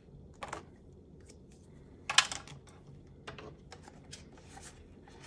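Small clicks, taps and rustles of desk work: a pen marking a paper chart and being set down, then a hand reaching into a plastic bin of banknotes. One sharper click about two seconds in is the loudest sound.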